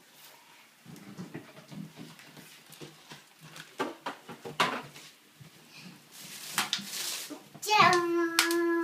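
Plastic supermarket bags rustling and packages being handled, with small knocks and crinkles, and a louder stretch of rustling near the end. In the last second a child's voice holds one drawn-out note.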